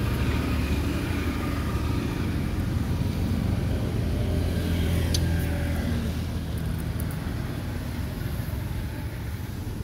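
Low engine rumble of a passing motor vehicle, growing louder toward the middle and then fading, with a single sharp click about five seconds in.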